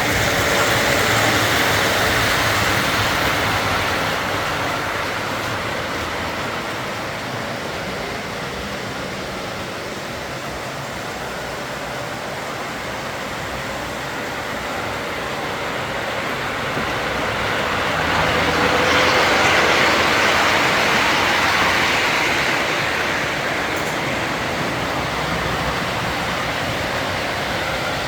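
Model trains running on the layout, a steady rolling rumble of wheels on the track that swells twice as a train passes close: once at the start and again about two-thirds of the way through.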